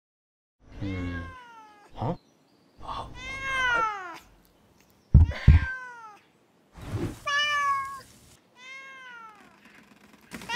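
A cat meowing over and over: about five drawn-out meows, each falling in pitch. Two sharp, loud knocks come close together about halfway through.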